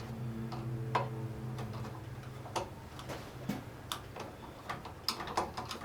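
Irregular small metal clicks and ticks of a screwdriver working at a tight, threaded emulsion tube inside a snowblower carburetor, which is binding and won't turn out. A steady low hum runs underneath and stops about two seconds in.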